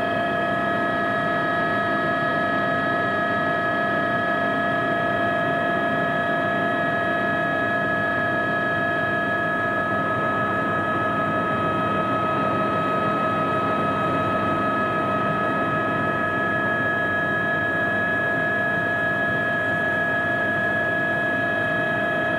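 Cabin noise of an Aérospatiale AS350B Squirrel helicopter in flight: a steady whine of several high tones from its Turbomeca Arriel turboshaft and drive, over an even rushing noise.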